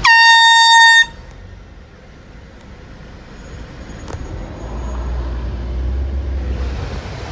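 Handheld canned air horn blasted once for about a second, a loud single piercing note that cuts off sharply. A low rumble builds and fades later on.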